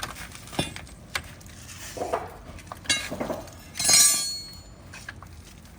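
Metal parts and hand tools clinking and knocking, with a louder ringing metallic clatter about four seconds in.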